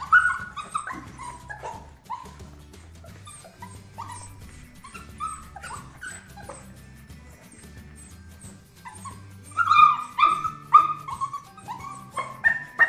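Puppies yipping and whining in short high cries as they play-fight, with a louder flurry of yelps about ten seconds in. Background music with a low bass line runs underneath.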